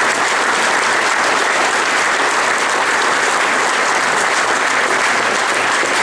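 Audience applauding, a loud, steady clapping.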